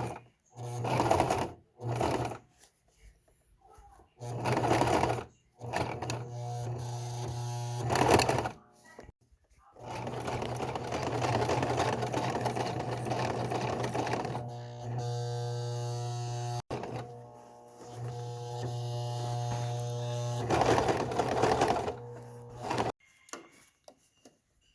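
Electric sewing machine stitching a zipper into jeans, its motor humming in several start-stop runs. The longest run lasts about a dozen seconds, and the machine stops near the end.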